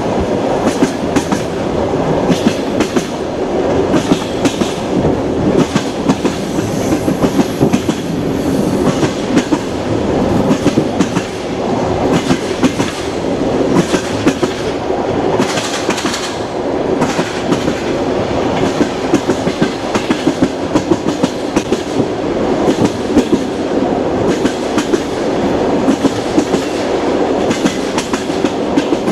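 Moving train: a steady rumble of the cars with wheels clattering in quick, irregular clicks over the rail joints, and a brief rush of higher hiss about halfway through.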